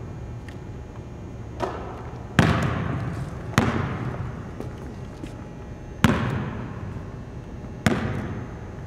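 Basketball bouncing on a hardwood gym floor: five separate hits, the first faint and the rest loud, spaced a second or more apart, each ringing on in a long echo through the large empty gym.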